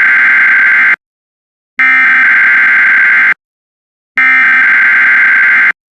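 Emergency Alert System SAME header: three bursts of buzzy, high-pitched digital data tone, about a second and a half each with short silences between, encoding the alert header for a Required Weekly Test. The first burst ends about a second in.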